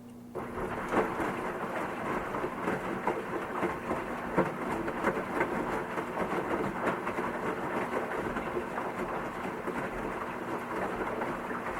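Washing machine: a quiet steady hum is cut across, about half a second in, by a sudden loud rush of sloshing, splashing water with many small knocks and clatters, which then keeps going steadily.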